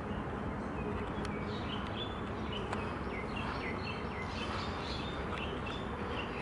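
Birds chirping: a string of short high calls, starting about a second and a half in, over a steady outdoor background rumble.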